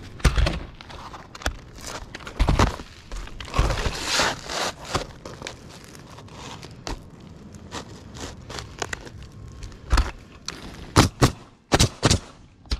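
Roofer at work on a roof: irregular footsteps, thuds and crinkling as shingles are handled, with a quick cluster of sharp knocks near the end.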